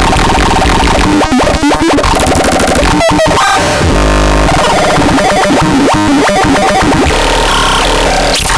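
Harsh, chaotic electronic noise from the WUZBRUCHT SP-161: stuttering, glitching tones and buzzing noise that change abruptly every second or so, with a deep drone for about half a second around the middle.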